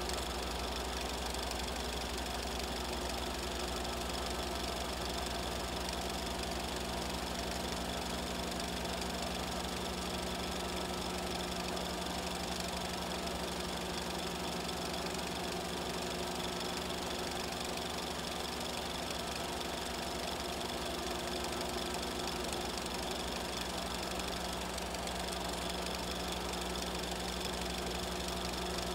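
A steady mechanical running noise with a constant hum under it, unchanged throughout; no voices.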